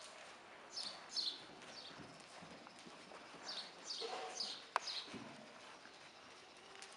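A paint horse's hooves striking soft arena dirt as it moves under a rider, faint and muffled. Over it, birds chirp in short, high, falling chirps that come in little runs of two or three.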